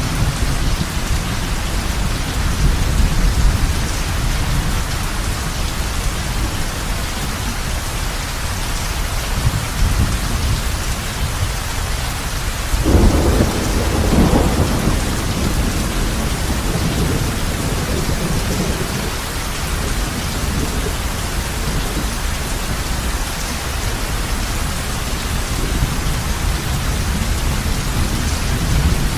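Heavy rain falling on a roof with a steady low rumble of thunder underneath. About halfway through a louder thunderclap breaks in and rolls away over a couple of seconds.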